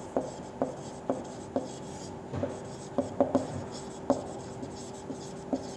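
Marker pen writing on a whiteboard: a string of short, irregular taps and strokes, about two or three a second, as the letters are formed.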